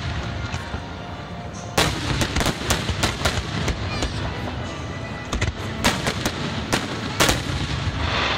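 Aerial firework shells bursting in a fireworks display: a run of sharp bangs over a low rumble, with several close together about two seconds in and another cluster around six to seven seconds.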